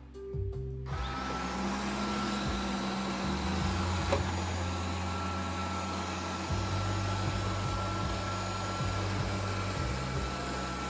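Robot vacuum cleaner starting its auto-cleaning run: its motor and brushes start about a second in and keep up a steady whir with a thin high whine over a low hum.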